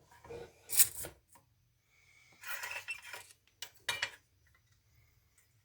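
Small metal tools and parts clinking and scraping on a workbench: a sharp clink just under a second in, a longer rattling scrape around the middle, and a couple of quick taps a little later.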